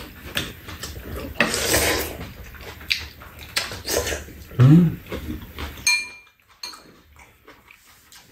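Eating at the table: metal spoons and chopsticks clicking against ceramic bowls while bean sprout soup is slurped and chewed, with a longer slurp about a second and a half in. There is a short hummed vocal sound about halfway through, and a ringing clink of a spoon on a bowl about six seconds in.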